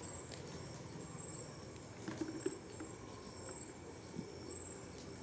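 Faint high-pitched chirping of crickets in on-and-off stretches, with scattered small clicks and crackles.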